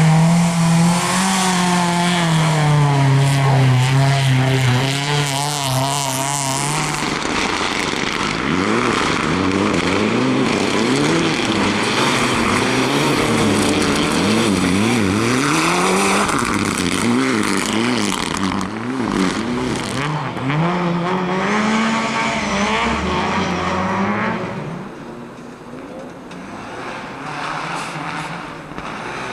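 Rally car engine held at high revs for several seconds. It then revs up and down rapidly again and again as the car is driven hard, and the sound drops away a few seconds before the end.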